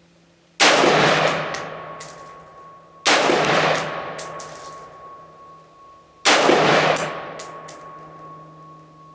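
Radical Firearms RF-15, an AR-15-style semi-automatic rifle, fired three times in slow aimed fire, about two and a half to three seconds apart. Each loud crack echoes for a couple of seconds, with a few fainter sharp reports trailing it.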